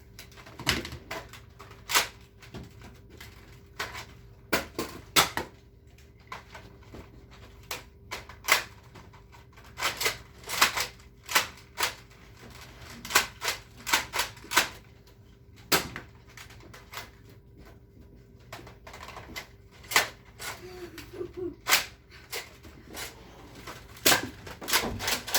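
Foam-dart blasters being fired and cocked: an irregular run of sharp pops and clicks, sometimes in quick clusters, a couple of dozen over the stretch.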